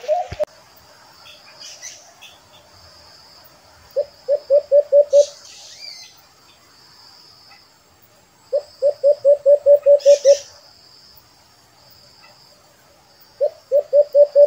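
White-eared brown dove (alimokon), a decoy bird being trained as a lure, calling in runs of quick, even, low hooting notes. There are three runs: about five notes some four seconds in, about nine near the middle, and a longer run starting near the end.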